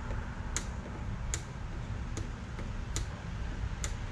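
Hand-turned crossbar dent puller being tightened on a glued pulling tab, clicking sharply about once every three-quarters of a second as the knob is twisted to draw the dent out. There is a steady low rumble underneath.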